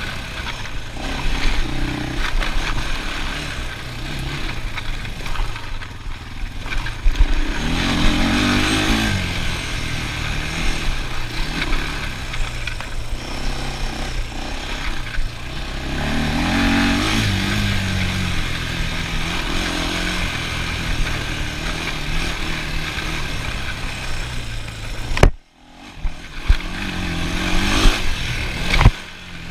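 ATV engine running under way, revving up twice with the pitch rising. The sound drops out abruptly for a moment near the end.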